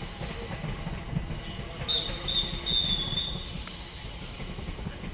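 A sustained high-pitched squeal over a low rumble, growing louder and wavering for about a second around two seconds in.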